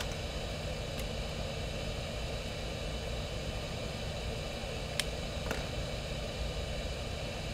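Steady background hum and hiss of a workshop room, with a few faint clicks from small parts being handled on the bench, about a second in and twice near five seconds.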